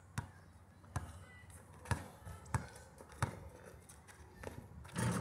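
Basketball dribbled on an outdoor asphalt court: about five separate bounces, a little under a second apart, then a louder, noisier sound near the end.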